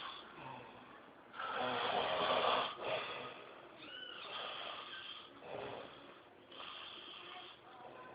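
Snoring from a sleeper: a long, loud snore starting about one and a half seconds in, followed by shorter, quieter snores.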